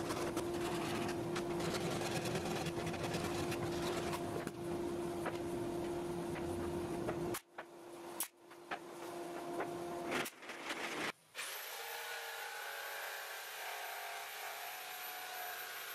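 Woodworking shop sounds: a steady machine hum with scattered knocks and taps of timber skirting boards being handled, broken by several abrupt cuts, then a steadier hiss in the last few seconds.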